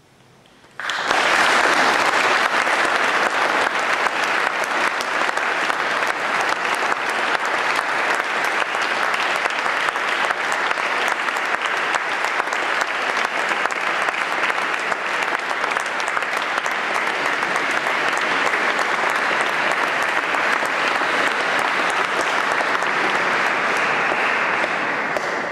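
Concert audience applauding: the clapping breaks out suddenly about a second in, right after the last sung note dies away, stays steady and loud, and begins to die down at the very end.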